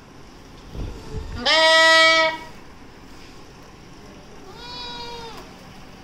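Young livestock bleating in a pen of goat kids and lambs. One loud, long bleat comes about a second and a half in, and a quieter, higher-pitched one near the end, with a brief low thump just before the first.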